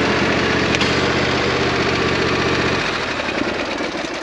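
DR XL Pro power unit's engine running steadily with the wood chipper hooked up. About three seconds in, the engine's low hum cuts off and a fading mechanical rattle is left as the machine winds down.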